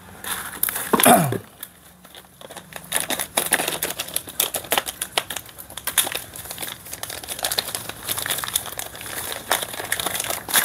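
Thin plastic bags crinkling as small rubber body-mount bushings are unwrapped and handled, a dense run of quick crackles from about three seconds in. A brief falling voice-like sound about a second in.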